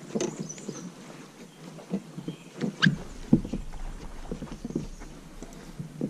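Kayak paddling: irregular splashes and drips from the paddle with light knocks against the plastic hull, two sharper knocks about halfway through.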